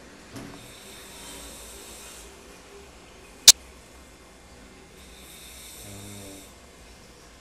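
A man snoring in his sleep: two slow snoring breaths, one starting about half a second in and another around five to six seconds, each a low rumble with a breathy hiss. A single sharp click about halfway through is the loudest sound.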